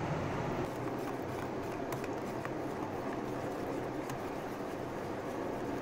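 Wire balloon whisk beating flour into a milk, sugar and ghee batter in a glass bowl: steady hand-whisking with faint clicks of the wires against the glass.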